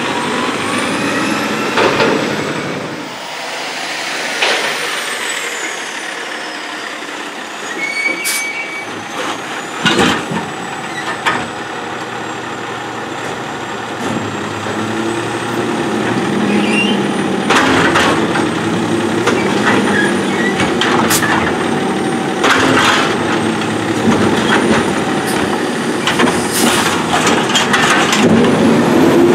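Heil Durapack 7000 automated side-loading garbage truck at work: diesel engine running, with a handful of short, sharp hisses and knocks from its air brakes and its hydraulic gripper arm handling a trash cart. The engine drone grows louder and steadier in the second half.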